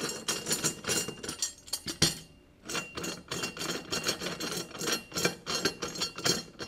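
Repeated metal clinks and knocks of clamp bars being loosened and lifted off an aluminium belt-fastener installation tool, with a short lull about two seconds in.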